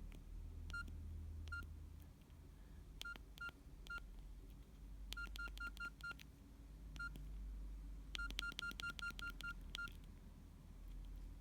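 Keypad beeps of a Nokia 6120 classic as its keys are pressed: short, identical high beeps, each with a click, about nineteen in all. They come singly at first, then in quick runs of five or more presses.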